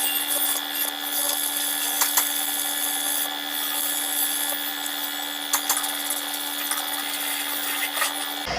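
A power tool running at a steady pitch over a high hiss, with scattered sharp clicks, during metal repair on a car body.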